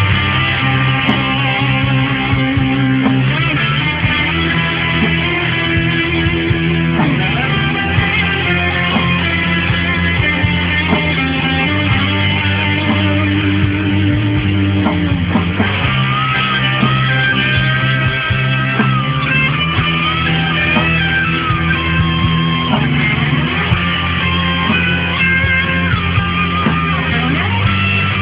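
Instrumental break of a rock band song: electric guitar playing a lead melody over a steady band backing with bass guitar.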